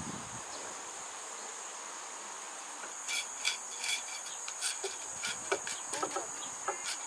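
Insects chirring steadily in one high, even tone. From about three seconds in come a series of light clicks and knocks as a curtain on a rod is fitted across a car's open tailgate.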